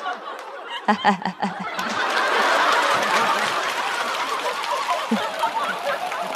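Studio audience laughing at a punchline, breaking into applause about two seconds in, with laughter and clapping going on together after that.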